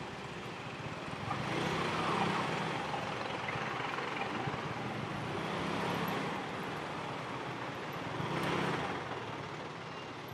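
Riding a motorcycle through city traffic: steady road and wind noise over the bike's low engine hum. Passing vehicles swell about two seconds in and again near eight seconds.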